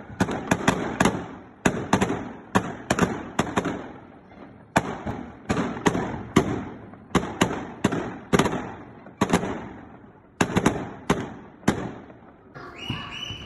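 Fireworks bursting overhead: dozens of sharp bangs in quick, irregular clusters of two to four, each trailing off in an echo.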